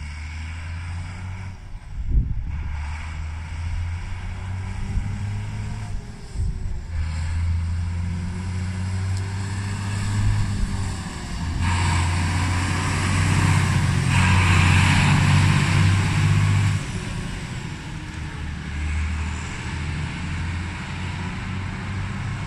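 Straight-piped diesel engine of an International 1255 tractor running as the tractor drives up and passes, loudest as it goes by around the middle; the engine note eases off briefly a couple of times. A short thump about two seconds in.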